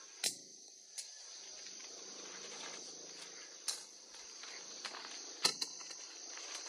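Crickets chirring steadily in a high, thin drone, with a few sharp snaps and rustles of leaves as citrus fruit is pulled from the branches.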